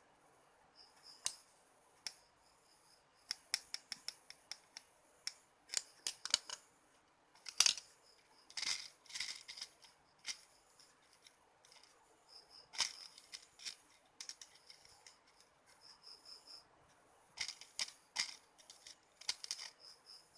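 Irregular sharp clicks and snips from small hand tools and electronic parts being handled while working on an LED bulb's driver circuit, coming in clusters with short quiet gaps between.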